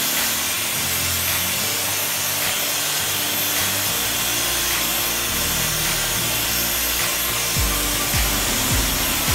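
Handheld hair dryer running steadily, a constant rush of blown air.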